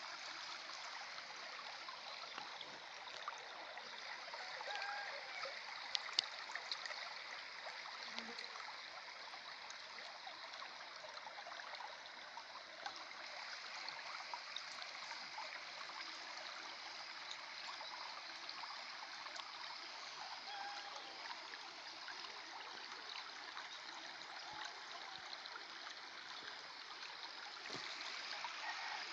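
Muddy floodwater running steadily along a shallow channel beside a flooded field after rain, with a few faint clicks about six seconds in.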